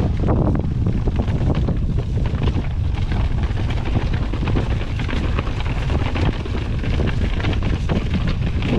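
Strong wind buffeting the camera microphone as a steady low rumble, with frequent small knocks and clatter from a mountain bike rolling over rough ground.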